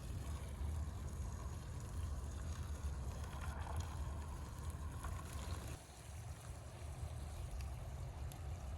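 Steady low rumble of wind buffeting the microphone outdoors, easing slightly about six seconds in.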